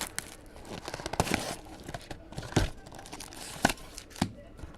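Trading-card pack wrappers crinkling and tearing open, with irregular sharp snaps and clicks as the cards are handled.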